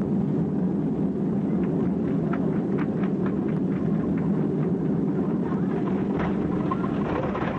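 Steady cabin roar inside a Boeing 767 airliner on its landing approach: engine and airflow noise heard from a passenger seat.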